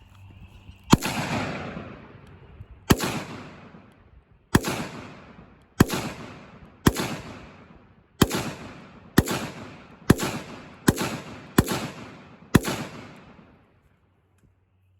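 Eleven single gunshots fired one after another, each followed by a long echoing tail. The gaps shorten from about two seconds to under a second, and the shooting stops about a second before the end.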